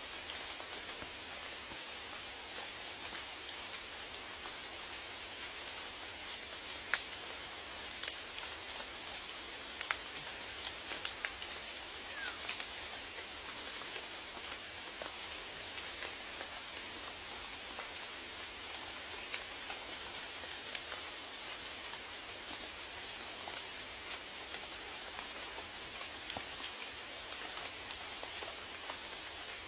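Steady rain with raindrops falling on a surface, an even patter with scattered sharper drips, a few louder ones about 7, 10 and 11 seconds in.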